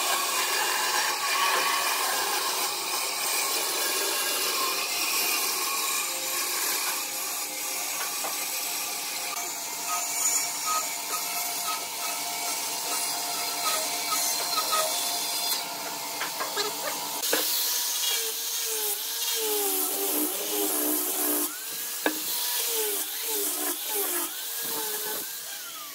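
Bandsaw blade cutting through a thick pine board, a steady saw noise. About two-thirds of the way through it gives way to a handheld disc sander on the wood, its motor pitch repeatedly dipping and rising.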